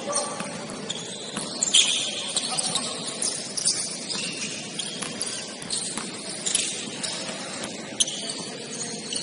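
Basketball game in play: sneakers squeaking in short chirps on the court floor, with the ball bouncing and thudding at irregular moments.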